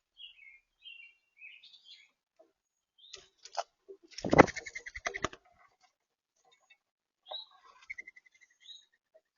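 Small songbirds chirping at a bird feeder, with a loud burst of rapid wing flapping about four seconds in that lasts about a second, then more chirps and a quick trill near the end.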